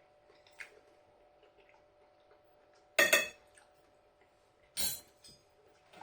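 Cutlery clinking and scraping against a ready-meal dish: two short, loud strikes about three and five seconds in, with faint ticks between.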